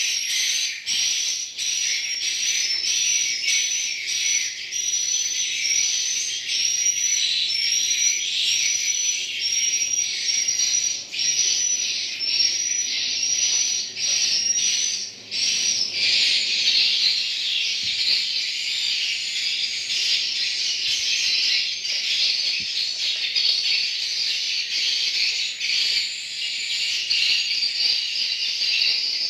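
Edible-nest swiftlet twittering: a dense stream of high chirps. For the first half a short rising whistle repeats over and over in a regular rhythm, then about halfway through it turns into thicker, busier chatter.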